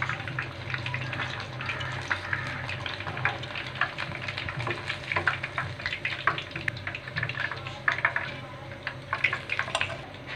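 Hot cooking oil sizzling and crackling in a wok with irregular pops, first around a piece of chicken frying in it, then in the bare oil once the chicken is lifted out.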